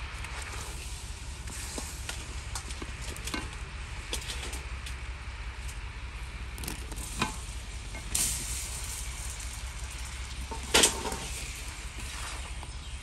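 Sugar syrup bubbling and sizzling in a metal wok while a wooden spatula stirs and scrapes the pan. Peeled bananas are tipped in from a basket during the second half, with a louder burst a little after eight seconds and the loudest knock near eleven seconds.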